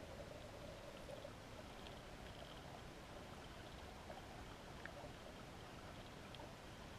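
Faint, steady, muffled underwater river ambience heard through a GoPro's waterproof housing, with a few faint ticks. A faint hum fades out about a second in.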